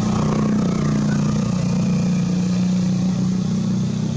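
An engine running steadily, a constant low drone.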